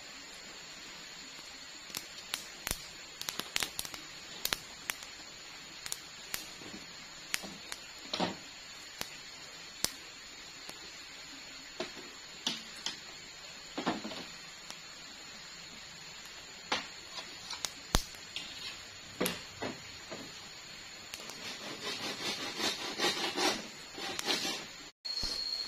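Sparse sharp crackles and pops from corn cobs roasting over campfire embers, with a steady high whine behind them. Near the end comes a denser run of knocks and rustling.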